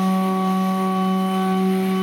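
Stepper motors of a homemade CNC hot-wire foam cutter humming at one steady pitch with overtones as they drive the threaded rods through a cut.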